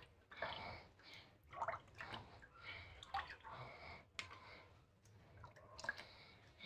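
Mango drink mix being scooped with a small cup and poured through a mesh strainer into a plastic jug: a faint series of short splashes and trickles of liquid.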